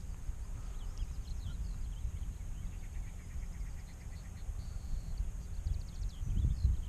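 Outdoor riverside ambience: a steady low rumble with many small bird chirps and a couple of quick trills over it, and a louder low thump about six and a half seconds in.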